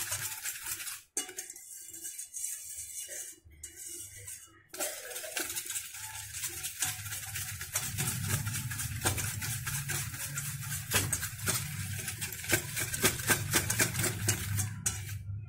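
A spoon beating cake batter of egg, oil and sugar in a stainless steel bowl: rapid, repeated clinks and scrapes of metal on metal. It stops briefly twice in the first few seconds, then runs on steadily.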